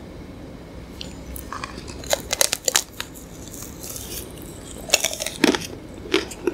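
Close-up crunching bites into the hard chocolate and chopped-nut coating of an ice cream bar, with chewing between bites; sharp crunches come in a cluster about two seconds in and again around five seconds in.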